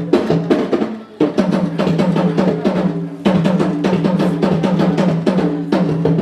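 Apinti talking drum played by hand, beating out a spoken greeting in drum language: fast runs of strokes over a ringing low tone, in phrases broken by short pauses about a second in and around three seconds.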